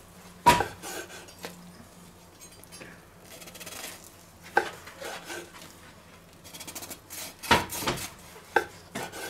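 Chef's knife slicing through a seared duck breast and knocking down onto a wooden cutting board: a few sharp knocks, the loudest about half a second in, another near the middle and a quick cluster near the end.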